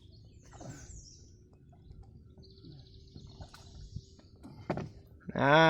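Faint bird calls: a short high chirp about half a second in and a high trill around three seconds. Near the end a man's voice cries out loudly.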